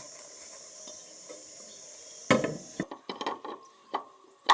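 A car wheel being fitted onto the hub: a heavy thump a couple of seconds in, then a run of short knocks and clicks, ending in a sharp knock.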